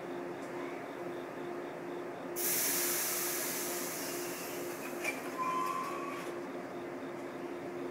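A JR 115-series electric train standing at the platform lets out a sudden loud hiss of compressed air about two seconds in, which fades away over about four seconds, with a sharp click partway through. A steady hum from the train runs underneath.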